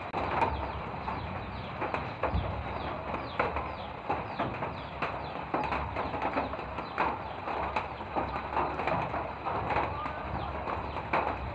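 Birds chirping repeatedly, in short falling calls, over a steady wash of light rain.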